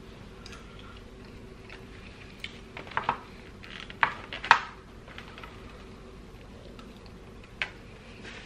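A fork clicking and scraping against a black plastic takeout container of chili cheese fries, in a few sharp clicks about three to four and a half seconds in and one more near the end.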